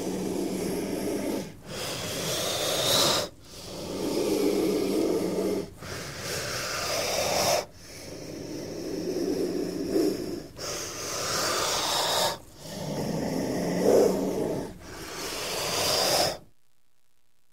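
King cobra hissing: about nine long, breathy hisses in a row, each swelling over a second or two and then breaking off, with short pauses between them.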